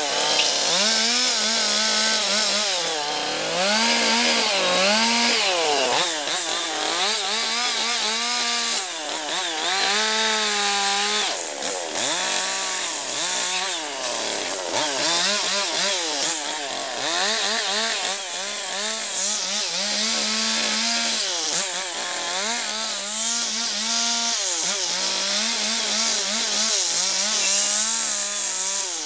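Large two-stroke chainsaw carving into a log. The engine revs up and down over and over: its pitch sags as the chain bites into the wood and climbs again as it frees.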